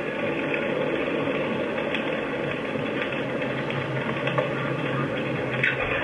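A house fire burning close to a doorbell camera, heard through the camera's small microphone as a steady rushing noise with a few faint pops.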